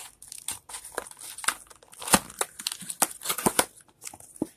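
Cardboard snack box being handled and its top flap pulled open, giving an irregular run of crinkling and crackling clicks, the sharpest about two seconds in.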